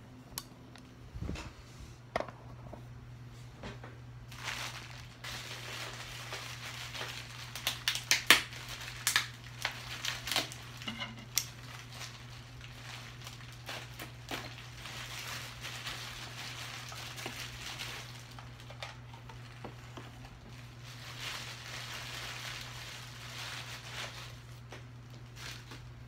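Clear plastic packaging crinkling and rustling as it is handled and cut open, with many irregular sharp crackles and clicks. A steady low hum runs underneath.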